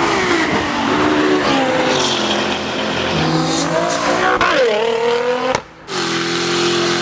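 Performance car engines revving hard at full throttle, their pitch climbing and falling. The sound drops out briefly about five and a half seconds in, then another engine runs on at a steadier pitch.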